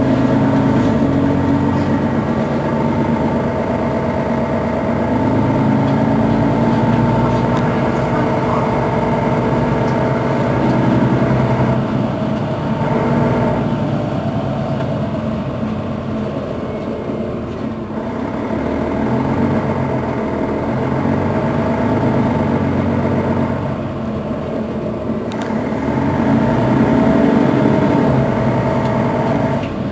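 Mercedes-Benz Citaro facelift city bus's diesel engine running, its drone swelling and easing several times as the bus pulls away and slows.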